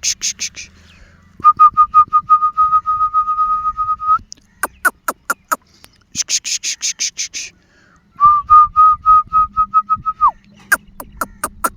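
A held, steady whistle tone over a fast ticking rattle, alternating with quick trains of sharp clicks, in a pattern that repeats about every six seconds like a looped sound track.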